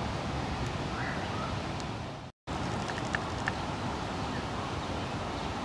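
Steady outdoor wind noise on the microphone, broken by a brief dropout to silence about two and a half seconds in, with a couple of faint clicks soon after.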